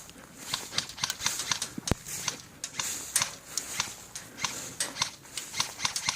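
Scattered sharp pops of airsoft guns firing, several a second and irregular, from more than one gun. There is a single duller thump about two seconds in.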